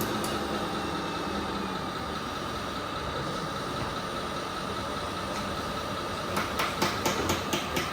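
Radio-controlled construction models running: a steady mechanical hum with a thin whine. A run of rapid clicks and ticks starts about six seconds in.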